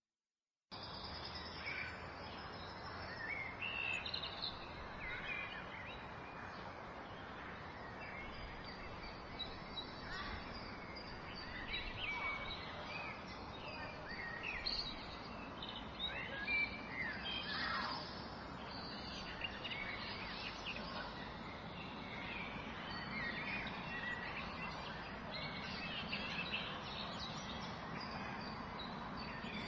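Many birds chirping and singing over a steady outdoor hiss. The sound cuts in suddenly about a second in, after silence.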